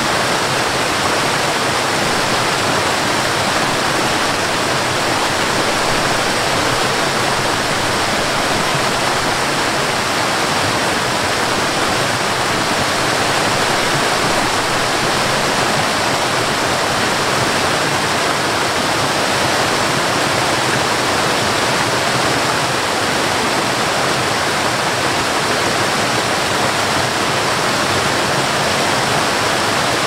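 Waterfall cascading over rocks: a steady, even rush of water.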